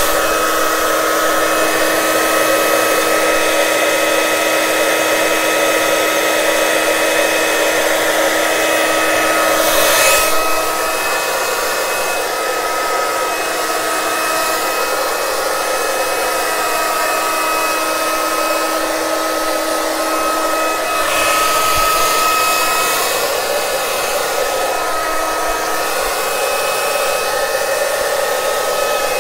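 Handleless hair dryer running on its only speed, high, blowing a steady rush of air over a steady motor whine. The sound swells briefly about ten seconds in and again about twenty-one seconds in.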